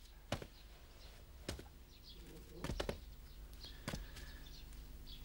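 A few soft knocks and footsteps on a stone floor as a kneeling man gets to his feet, with faint short chirps from a caged parrot.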